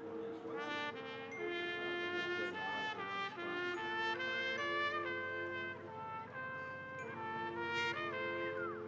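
High school marching band playing, with the brass holding sustained chords that change every second or two.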